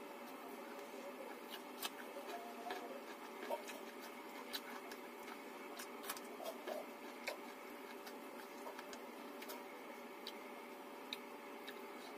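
Close-up eating sounds of a person eating rice and fish curry by hand: soft chewing with scattered wet mouth clicks and smacks at irregular times, over a steady background hiss.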